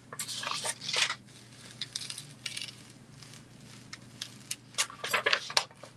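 Clear plastic DTF transfer film being cold-peeled by hand off a heat-pressed print on a T-shirt: crinkling and crackling, in a burst within the first second, scattered crackles after, and another run about five seconds in.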